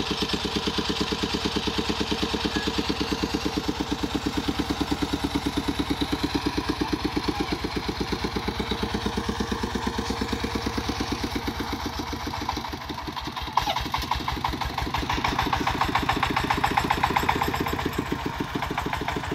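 Công nông's single-cylinder diesel engine running with a fast, even chugging. About two-thirds of the way in the sound changes abruptly and a harsher rattle in higher tones joins the chugging.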